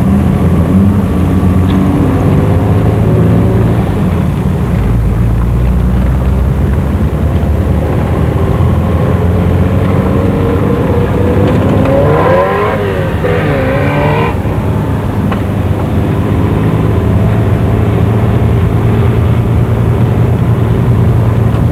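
Rally car engine heard from inside the cabin, running hard with the revs rising and falling as the car is driven through bends. About twelve seconds in a brief wavering sound rises and falls in pitch over about two seconds.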